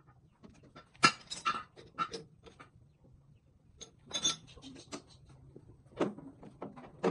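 Sharp metallic clinks and clanks as a gear workpiece is set up between the chuck and the tailstock of a metal lathe that is standing still. There is a quick cluster of knocks about a second in, then single clanks every second or two.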